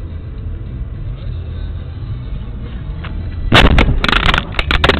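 Steady low rumble of a car on the road, then about three and a half seconds in a burst of loud, sharp bangs and crunches: a vehicle collision.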